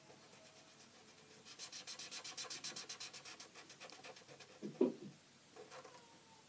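Felt-tip pen scribbling back and forth on paper, colouring in a letter with rapid, even strokes for about three seconds. A brief vocal sound comes near the end.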